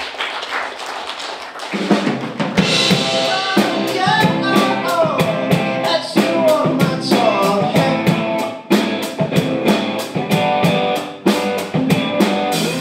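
Live rock band playing electric guitars, electric bass and a drum kit, with a lead voice singing over it. It opens quietly, and the full band with drums comes in about two seconds in.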